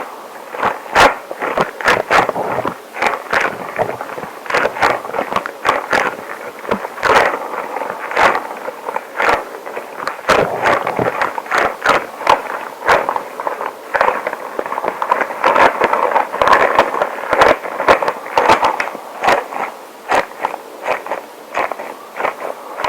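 Extra-long rubber gloves rubbed and handled close to the microphone: a dense, irregular run of squeaky friction with sharp crackling clicks.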